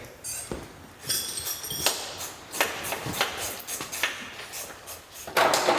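Scattered metallic clinks, taps and knocks of hand tools on a bus radiator and its fittings as it is being taken off, some with a short high ring.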